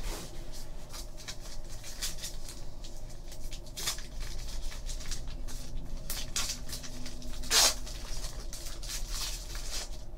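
Foil wrapper of a Panini Titanium hockey card pack crinkling in the hands and being torn open, as a string of irregular crackles with the loudest rip about seven and a half seconds in.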